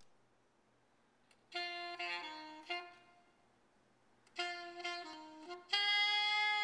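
Solo woodwind intro music: two short melodic phrases, then a long held note near the end.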